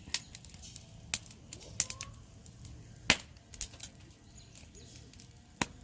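Wood campfire crackling: irregular sharp snaps and pops, the loudest about three seconds in, over a faint low hiss.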